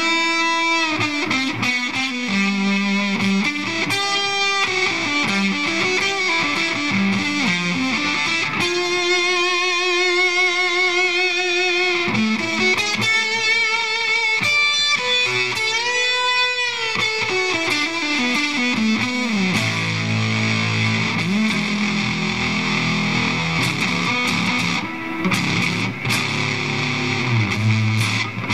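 Stratocaster electric guitar played through the Shrimp Pistol Stun germanium fuzz pedal: distorted lead lines with string bends and a held, wavering vibrato note near the middle, moving to lower notes and chords about two-thirds of the way in.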